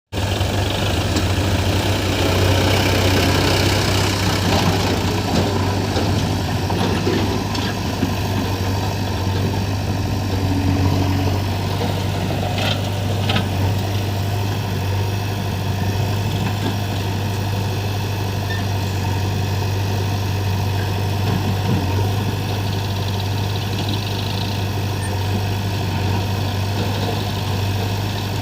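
Diesel engine of heavy machinery running steadily at idle, a deep, even hum, with a couple of faint knocks about halfway through.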